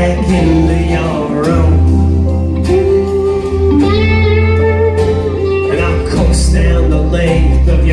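Live band music with acoustic and electric guitars, keyboard and drums over a heavy low end, heard from within the audience.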